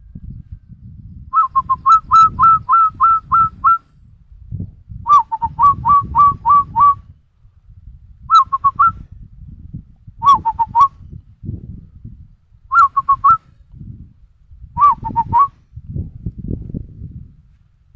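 A person whistling an imitation of the zebra dove (perkutut) call. The call comes as six phrases of quick, clipped coo notes, from three to nine notes each, with pauses between them, over a low background rumble.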